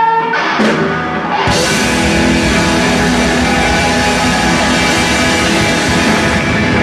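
Live boogie-rock band: a held electric guitar note breaks off, and about a second and a half in the full band with electric guitars, bass and drum kit comes in and plays on loud.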